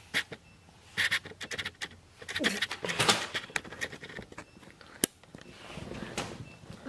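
Rustling and scratching of a handheld camera being moved close to the face, with short breathy laughter and a single sharp click about five seconds in.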